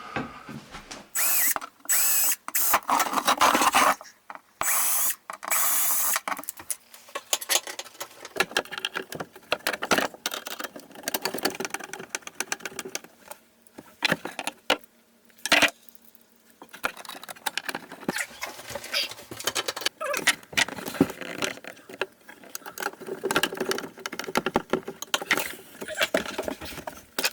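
Cordless drill run in several short bursts early on, drilling screw holes into the vanity cabinet, followed by a long stretch of irregular clicking and rattling of tools and hardware being handled.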